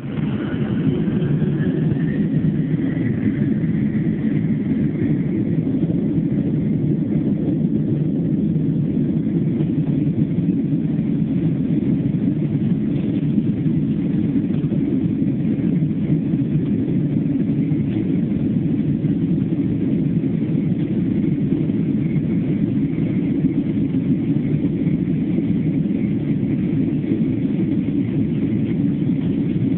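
Jet airliner's engines and rumble heard from inside the cabin during take-off: a loud, steady roar, with a faint whine rising in pitch over the first few seconds as the engines spool up.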